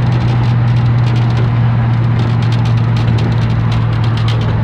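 A 1982 Chevrolet C10 pickup on the move, heard inside the cab: a steady low engine drone with frequent light clicks and rattles over it.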